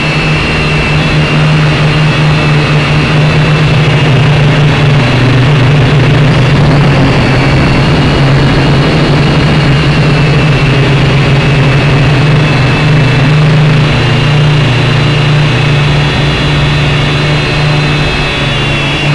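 Drone's motors and propellers running in flight, a loud steady buzzing hum heard close up through the drone's own onboard camera; the pitch wavers slightly as it manoeuvres.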